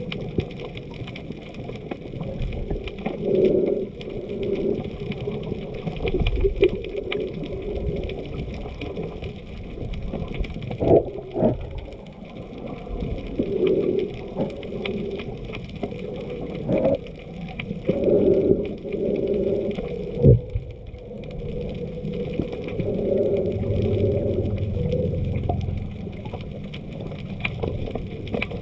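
Muffled water sloshing and gurgling picked up by a camera in a waterproof housing while snorkeling, swelling and fading every few seconds. A couple of sharp knocks come about halfway through and again about two-thirds of the way in.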